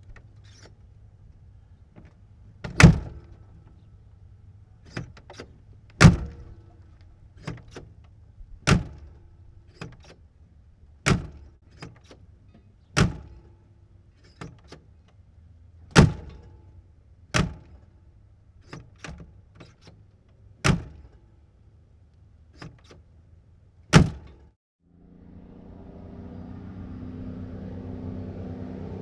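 Cab door of a 1954 big rig truck opened and slammed shut repeatedly, about nine heavy slams with lighter latch and handle clicks between them. Near the end the truck's engine comes in, growing louder as it approaches at speed.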